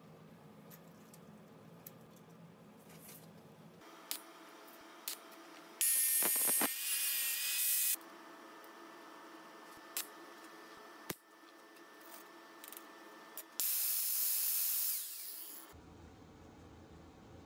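A small power tool starts up about four seconds in and runs steadily. Twice it cuts into a thin stainless-steel strip, giving a loud, hissing, ringing grind of about two seconds each time. Light clicks of the metal being handled come in between.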